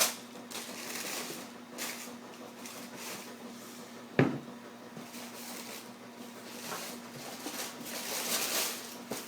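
Tissue paper rustling as a pair of sneakers is handled and lifted out of its shoebox, with a single sharp knock about four seconds in.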